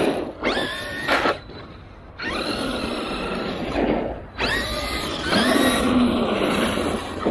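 Traxxas E-Revo 2 RC monster truck's electric motor whining up in pitch with each burst of throttle, mixed with the rush of its tyres on asphalt. It accelerates about four times, with a quieter lull about two seconds in.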